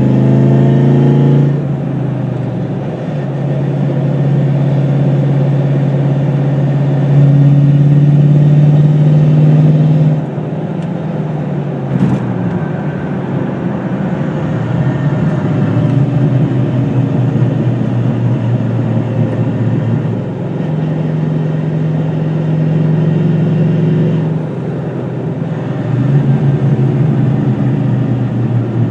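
2002 Ford Mustang GT's 4.6-litre V8 running, its note stepping up and down in level several times, with one sharp click about twelve seconds in. The owner traces an unusual noise to the transmission/clutch area.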